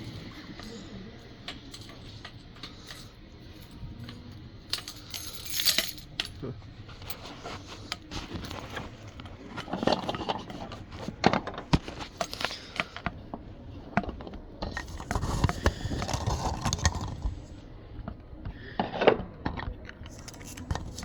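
Irregular clinking, knocking and rustling of small hard objects being handled, with louder bursts of clatter several times.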